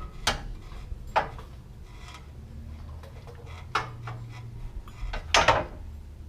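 Steel coil spring and suspension parts clanking and knocking a few times as the coil is worked into a truck's rear spring seat, the loudest knocks about five and a half seconds in, with a short low hum near four seconds.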